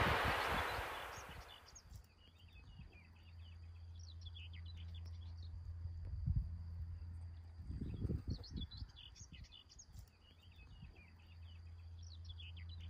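A songbird singing short twittering phrases every few seconds, over a steady thin high tone and a low wind rumble on the microphone with a few gusts. A rush of wind noise dies away over the first two seconds.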